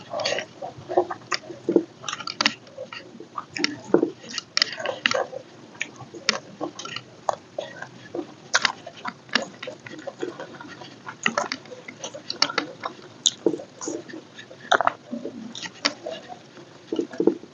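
Close-miked mouth sounds of a person chewing food: an irregular run of wet smacks and sharp crunchy clicks, several a second.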